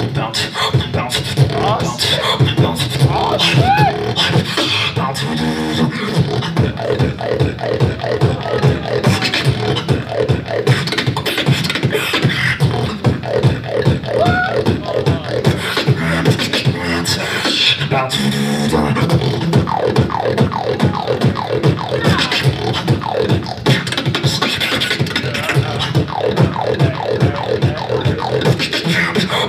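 Beatboxer performing through a handheld microphone and PA: a fast, unbroken beat of mouth-made kick, snare and hi-hat sounds, with bending pitched bass and vocal tones woven in now and then.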